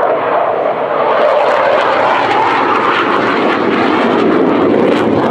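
Hawker Hunter jet fighter's Rolls-Royce Avon turbojet in a low display pass, giving loud, continuous jet noise. Its tone rises a little through the middle and falls back near the end.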